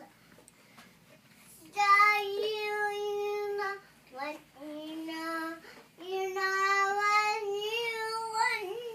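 A young child singing long, drawn-out notes, starting about two seconds in, with short breaks between phrases.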